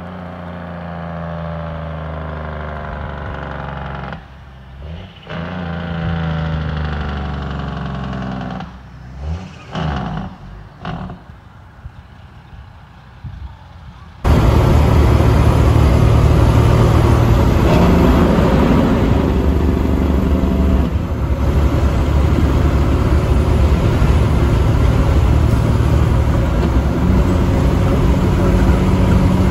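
Truck engines: first a truck's engine running, its pitch rising and falling with a few short breaks, as in gear shifts; then, after a sudden cut about halfway through, a much louder, rougher engine running steadily close by.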